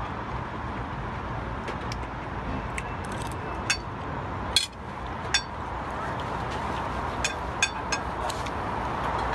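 Steady street traffic noise, with a few sharp clicks and clinks of forks on dishes as the food is eaten.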